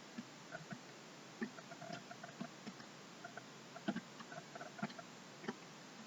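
Faint, irregular clicking and tapping from a computer keyboard.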